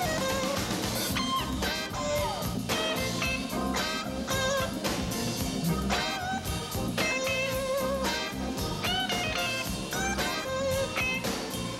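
Instrumental background music with a steady beat, bass and a lead line whose notes bend and slide.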